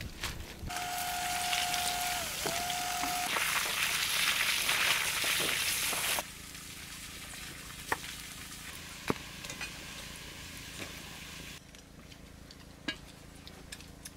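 Large pot of chicken and banana-flower soup bubbling on a fire with a steady hiss, loudest for the first several seconds, with a steady high tone over its first couple of seconds. The hiss then drops to a quieter simmer while a ladle stirs it, clinking against the pot twice.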